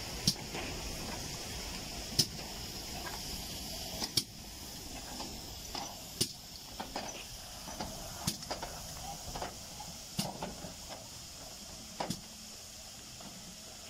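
GWR 4575-class Small Prairie 2-6-2T steam locomotive 5542 moving slowly past with a steady hiss of steam and a sharp click about every two seconds. The sound drops a little after about four seconds.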